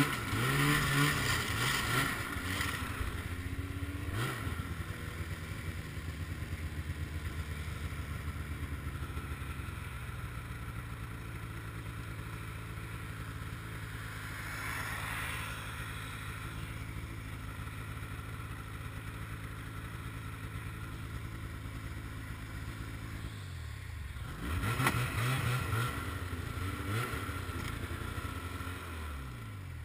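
Ski-Doo MX Z 700 snowmobile's two-stroke engine revving briefly at the start, then running steadily at low revs, and revving up and down again near the end. A car passes on the road about halfway through.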